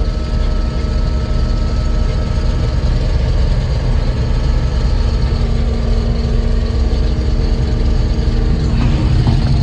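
Heavy engine of harvest machinery running steadily, a constant low rumble with a steady hum over it.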